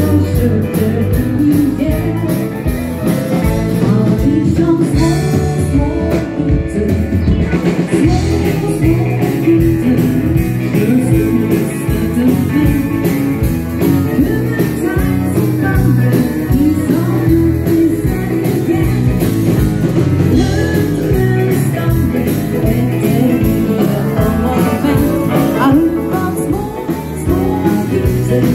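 Norwegian dance band playing live through a PA in a dance hall: an upbeat rock'n'roll-style song with singing over a band with a steady beat.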